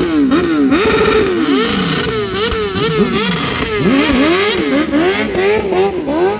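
Stunt motorcycle engine revving up and down in quick repeated throttle blips, about two a second, the pitch climbing and dropping each time.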